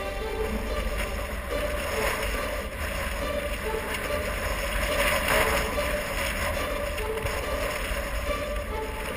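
Vehicle driving on a gravel road: a steady low rumble with tyre and wind noise.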